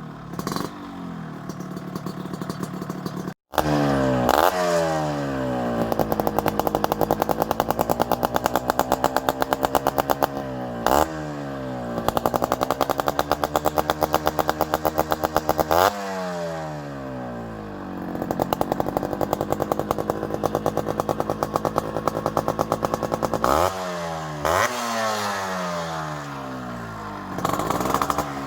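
Yamaha RX100's two-stroke single-cylinder engine revved repeatedly through its exhaust: the revs snap up, hold high for several seconds, then fall back toward idle, over and over. There are a few sharp cracks from the exhaust as the throttle snaps.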